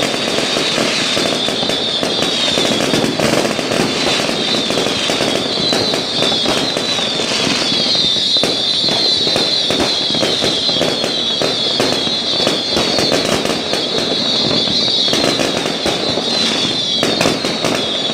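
Many New Year fireworks and firecrackers going off at once: a dense, unbroken crackle of bangs and pops, with a high wavering tone running underneath.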